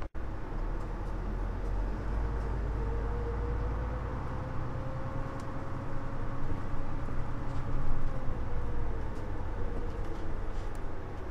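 Mitsubishi Fuso LKG-MP37FM city bus driving: steady low engine rumble with a whine that slowly rises in pitch and then falls back near the end.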